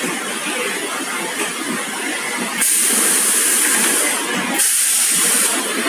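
High-frequency PVC welding machine's pneumatic press giving two bursts of hissing air: the first about two and a half seconds in, lasting nearly two seconds, the second shorter near the end, over steady machine noise.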